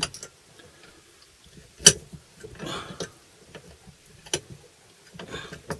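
Sharp metallic clicks, three of them with the loudest about two seconds in, and soft handling rustle from a Trojan hand rivet gun and a pop rivet as the rivet is fitted into the gun's nose.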